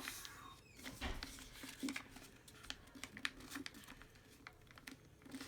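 A sheet of paper being folded and creased by hand: faint rustling and scraping with scattered light taps and clicks, a little louder in the first two seconds.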